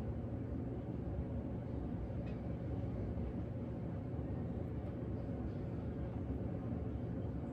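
Steady low background rumble of room noise, with one faint small click about two seconds in.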